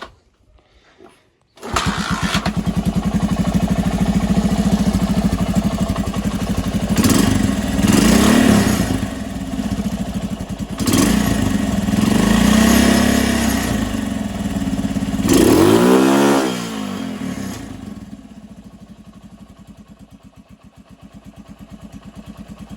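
Honda TLR200 trials bike's single-cylinder four-stroke engine catching and firing up about two seconds in, revved several times with throttle blips, then settling into a slow, low idle near the end.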